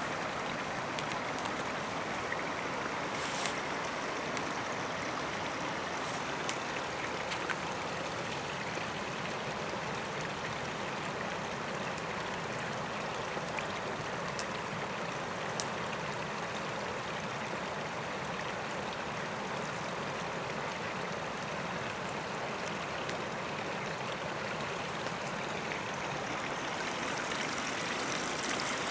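Steady rushing of a stream flowing nearby, with a few faint clicks scattered through it.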